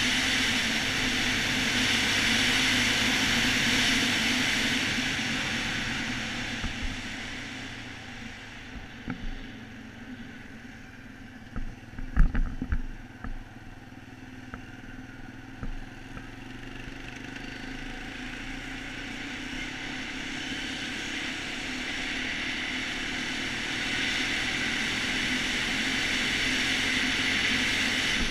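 Quad ATV engine running as it rides, with a steady rush of noise over it. The sound dies down for a while in the middle, with a short cluster of knocks about halfway, then builds back up.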